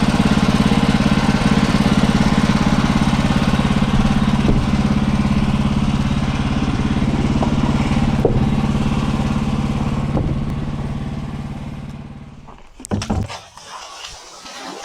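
Manual bandsaw sawmill's engine running steadily with the blade going, then winding down and stopping about twelve and a half seconds in, followed by a few sharp knocks.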